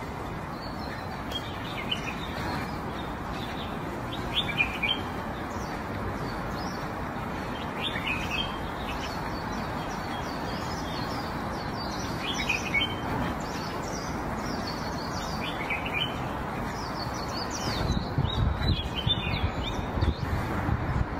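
Small birds chirping, short separate calls over and over, over a steady background hiss. Near the end there is a run of low knocks.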